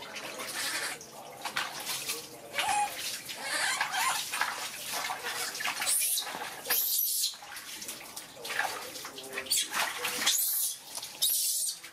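Water splashing and sloshing in a large stainless steel basin as a baby monkey is bathed by hand. The splashing comes in irregular bursts, with the strongest about six to seven seconds in and again near the end.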